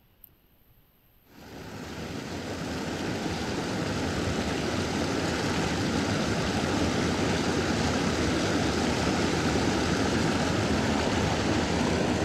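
Water rushing over a small creek waterfall, a steady rushing noise that swells in about a second in after a near-quiet start and then holds level.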